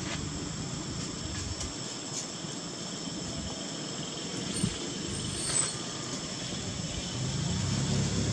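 Outdoor ambience: a steady high-pitched drone of insects over a low rumble, with two short sharp knocks a little past the middle.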